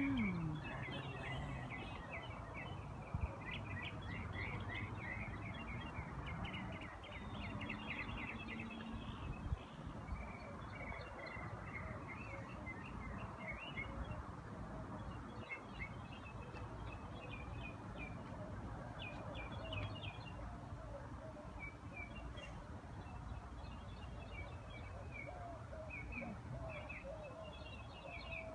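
Birds chirping outdoors in quick runs of short high notes throughout, over steady low background noise, with one sharp click about three seconds in.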